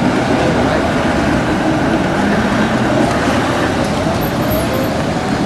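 Steady city street noise as trams pass close by: a continuous rumble of tram motors and wheels on the rails, mixed with general traffic.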